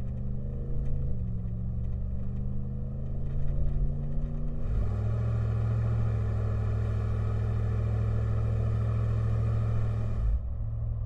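Ram 1500's 5.7-liter Hemi V8 exhaust through a Carven Progressive replacement muffler: idling, then revved up about five seconds in and held at a higher engine speed for about five seconds before dropping back to idle.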